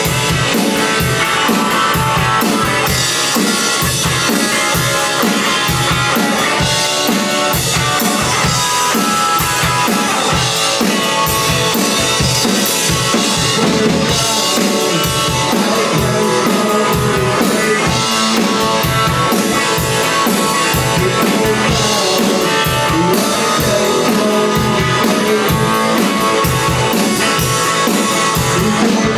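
Electric guitar played through a 1967 Supro Thunder Bolt tube amplifier, with a drum kit keeping a steady rock beat.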